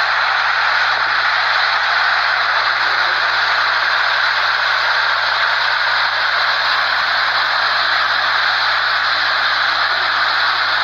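Strong wind and heavy rain of a tornado: a steady, even rushing hiss.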